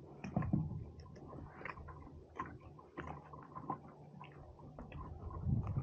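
Scattered small clicks, ticks and rustles of hands handling a soft-plastic lure and fishing line, over a low steady rumble.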